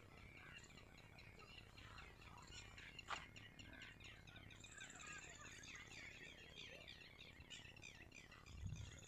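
Faint chirping and twittering of small birds, with a brief high trill about five seconds in. A single sharp click just after three seconds is the loudest moment.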